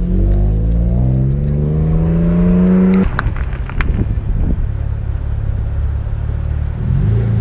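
Car engine accelerating hard through the gears: the revs climb steadily for about three seconds, then drop abruptly at a gear change with a few sharp clicks, and the engine pulls on at lower revs before starting to climb again near the end.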